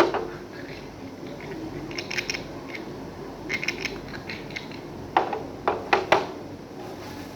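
Hard plastic parts of a children's slide knocking and clicking as they are handled, with a few light clicks and then four louder knocks in quick succession near the end.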